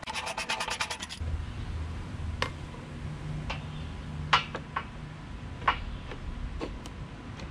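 Socket ratchet wrench clicking rapidly, about ten clicks a second, as a 15 mm crash-bar bolt is backed out; the clicking stops about a second in. Then a few separate sharp metallic clinks and taps as the steel mounting bracket and bolt are handled.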